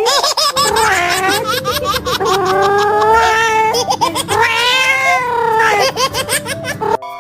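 Cat yowling in a run of loud, drawn-out, wavering cries that rise and fall in pitch, two of them held for over a second.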